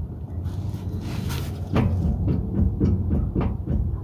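Ford 8.8 rear differential clunking as its pinion yoke is turned by hand: a run of short knocks, about two a second, over a steady low rumble. It clunks more than usual because the differential has been drained of gear oil.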